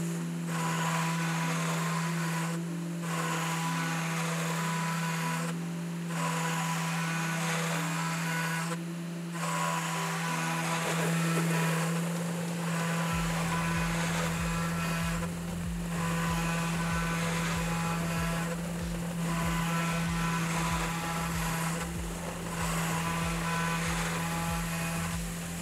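Steady motor hum of a desktop CNC router spindle milling an aluminium plate, under background music whose low beat comes in about halfway through.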